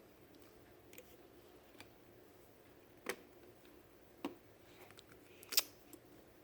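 Several sharp clicks and knocks of a fire alarm pull station being handled, spaced about a second apart, the loudest a little past halfway.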